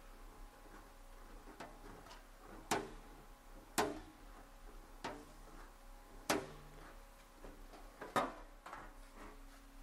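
Sheet-metal fender panel being rolled through an English wheel with the wheel pressure just raised, planishing the panel. The panel gives a series of sharp metallic ticks and clicks a second or two apart, four of them louder than the rest.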